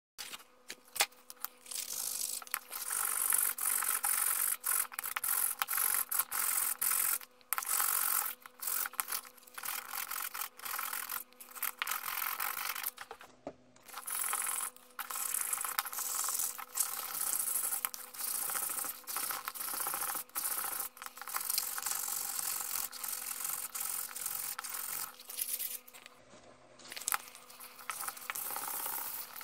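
Sanding sponge rubbed back and forth along a carved butternut wooden pen blank, a hissing scrape in quick strokes with brief breaks. It pauses briefly about halfway through and again near the end.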